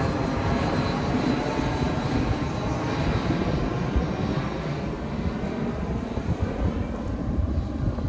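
Jet airliner flying low overhead: a steady rush of engine noise with a faint high whine that fades about halfway through.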